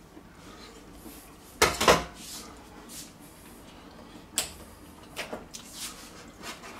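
Two-pronged metal meat fork clattering as it is set down on a stainless-steel sink drainer: a couple of loud clanks about one and a half seconds in, followed by a sharp click and a few lighter knocks of kitchen utensils.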